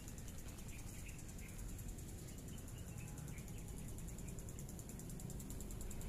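Insects trilling in a steady, fast pulsing drone, with a few faint chirps and a low background rumble.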